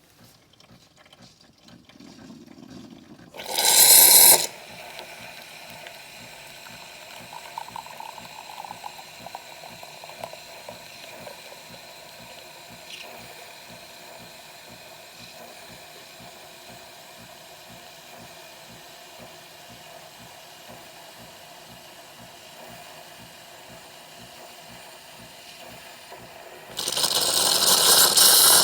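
Bosch built-in coffee machine running a latte macchiato cycle: a short loud hiss about four seconds in, then a steady mechanical hum of the machine working for over twenty seconds, and a loud hiss of steam starting near the end.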